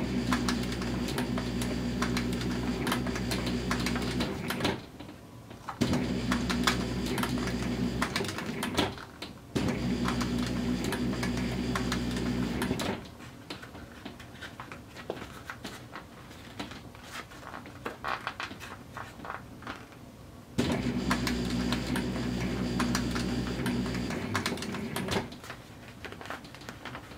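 Cylinder-arm walking-foot industrial sewing machine stitching through leather in runs of a few seconds, its motor humming under the rapid clatter of the needle bar and feet. It stops briefly between runs, with a longer, quieter stretch of scattered clicks in the middle.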